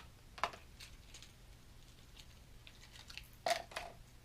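Plastic lure packaging crackling and clicking as a square-bill crankbait is taken out: a couple of sharp clicks near the start, then a louder cluster of crackles about three and a half seconds in.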